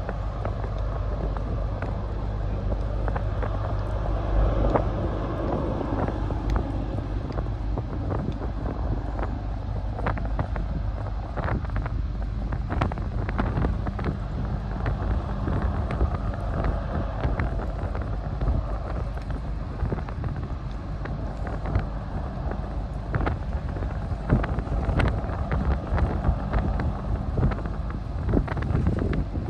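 Low, steady drone of a Blue Star Ferries car ferry's engines as the ship gets under way, heard across the harbour, with wind buffeting the microphone and scattered small clicks.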